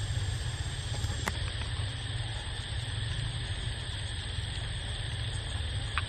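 Steady low rumble and high hiss of outdoor background noise, with a single sharp click about a second in.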